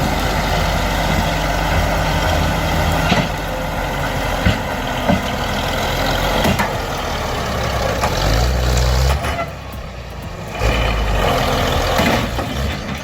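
Heavy diesel engine of a logging machine running under load, with a few sharp metal knocks and the engine surging louder about eight seconds in and again near the end.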